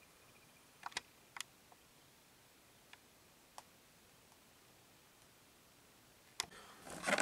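Faint scattered clicks and light taps from handling plastic-packaged diecast toy cars, followed near the end by a sharper click and a brief rustle of the packaging.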